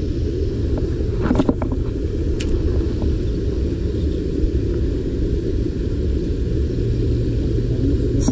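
Small boat's engine running steadily as the boat backs up, a low rumble.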